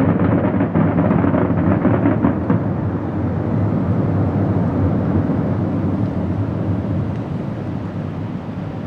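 Aerial fireworks going off: dense crackling for the first two and a half seconds over a loud low rumble of shell bursts, the rumble slowly fading.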